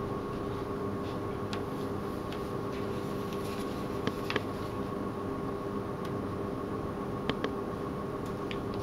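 Steady ventilation hum from a fan or air-conditioning unit, with a few faint light ticks scattered through it.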